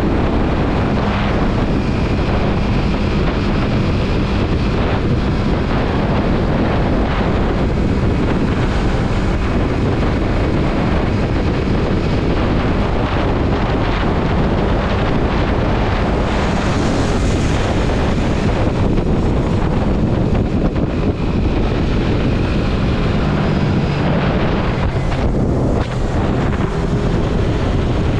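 Yamaha MT-03 motorcycle riding along at speed: heavy wind rushing over the microphone, with the engine running steadily underneath.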